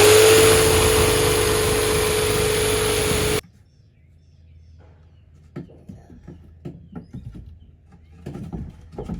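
Handheld power tool motor spinning up and running steadily for about four seconds, then stopping abruptly, followed by light knocks and handling sounds.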